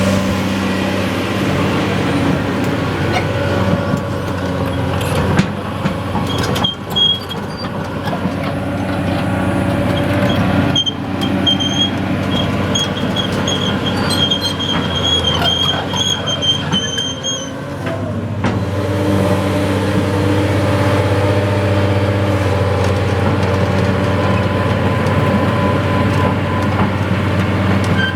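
Caterpillar 330D L excavator's diesel engine running steadily. In the middle the engine note changes and a thin, high squeal comes and goes for about ten seconds, then steady running returns.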